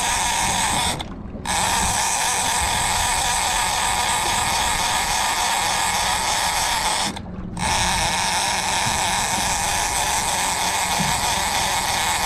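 Overhead game fishing reel's drag screaming as a hooked school bluefin tuna runs and takes line, stopping abruptly twice for half a second before starting again.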